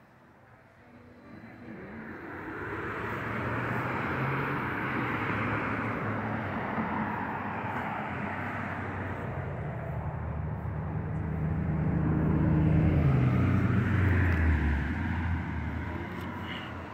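An engine passing by, growing louder for several seconds, then dropping in pitch and fading as it goes past.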